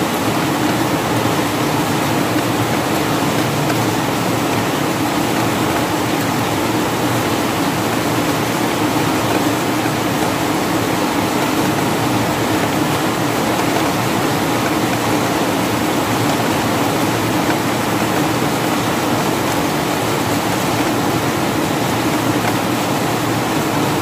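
Steady rain falling, an even, unbroken hiss with no single drops or gusts standing out.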